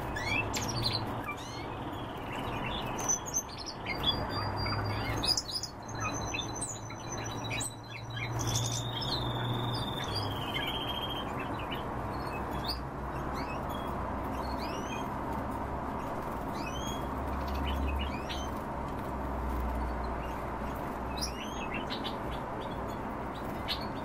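European goldfinches and other small cage birds chirping, with many short, quick call notes. A few held whistled notes come in between about four and eleven seconds in, over a steady low hum.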